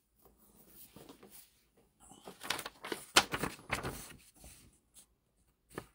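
Light handling noise: scattered small clicks and rustles, sparse at first and busier from about two to five seconds in.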